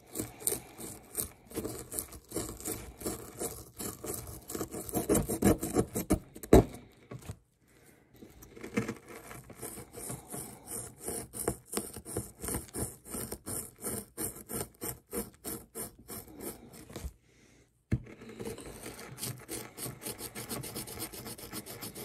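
A small blue digging pick scraping and chipping at a crumbly dig-kit block in rapid, repeated strokes. The strokes pause briefly twice, and there is one sharp knock about six and a half seconds in.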